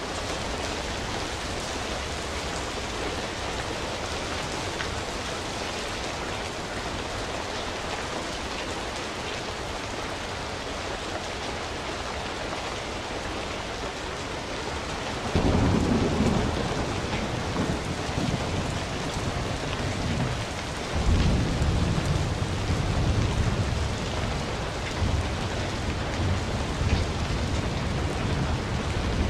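Steady rain hiss, with low thunder rumbles rolling in about halfway through and again about two-thirds of the way in.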